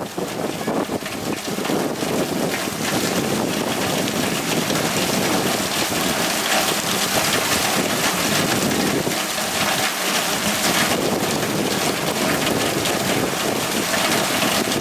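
Hurricane rain pouring steadily with gusting wind, the wind buffeting the microphone.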